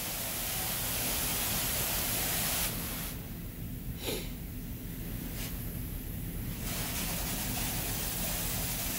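High-pressure water spray from a Wash World Razor touchless car wash hitting the body of an empty cargo van, heard from inside the van as a steady hiss. The spray is strongest for the first few seconds, then thins and comes back in waves as the spray arm moves along the van.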